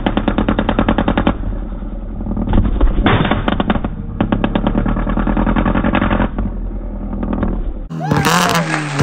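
Chevrolet Cruze's exhaust crackling with rapid-fire bangs from a flame kit, in several bursts with short lulls between them. About eight seconds in, edited-in music cuts in.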